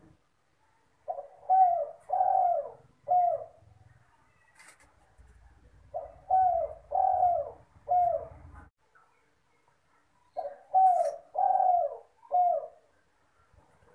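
Spotted dove (derkuku/tekukur) cooing: three phrases of about four coos each, a short note, two longer ones and a short one, with a new phrase every four to five seconds.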